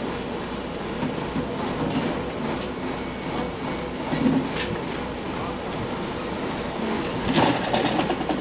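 Mobile crane's engine running steadily during a recovery lift, with a burst of metallic rattling about seven seconds in.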